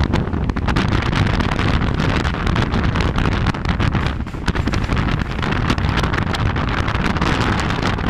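Wind buffeting the phone's microphone over the running noise of a train crossing a steel truss bridge, with rapid irregular clattering and knocking throughout.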